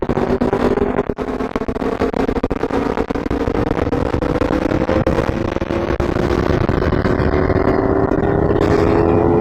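Aprilia RSV4's V4 engine pulling steadily under throttle, its pitch climbing slowly as the bike gathers speed. Heavy wind rush buffets the onboard microphone underneath.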